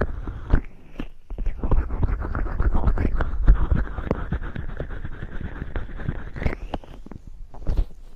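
Fingers rubbing oil over an ear microphone in an ASMR ear massage: close, wet squishing and rubbing in dense quick strokes, with many small crackles.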